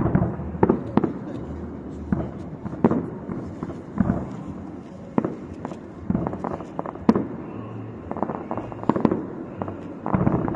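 Fireworks display: aerial shells bursting in an irregular run of bangs and pops, several a second at times, with the sharpest bang about seven seconds in.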